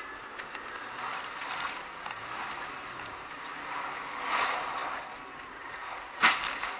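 Road and engine noise of a moving car, with one short, sharp knock about six seconds in.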